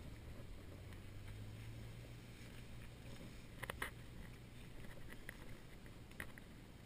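Footsteps crunching on a sandy trail, a few sharp steps about halfway through and near the end, over a faint, steady low hum from a distant motor that fades out about halfway through.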